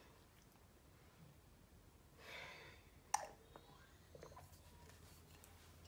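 Near silence: a soft breathy exhale a little past two seconds in, then a single sharp click about a second later, with a few faint ticks after it.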